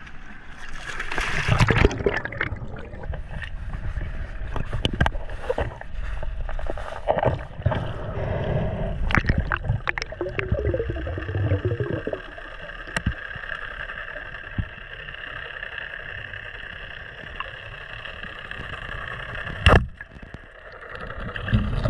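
Underwater sound of a spearfishing dive: a splash as the diver enters the sea, then bubbling, scattered clicks and a steady mechanical hum in the water. Near the end comes one sharp crack as the double-roller speargun fires its shaft into a kingfish.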